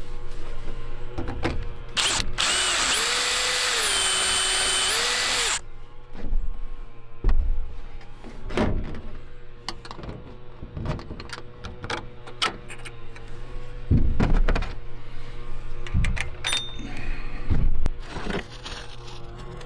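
Cordless drill boring a hole through the truck roof for a U-bolt: a few seconds in it runs for about three and a half seconds, its whine dropping in pitch as the bit bites and rising again before it stops. After that come scattered knocks and clicks as the U-bolt and mounting hardware are handled.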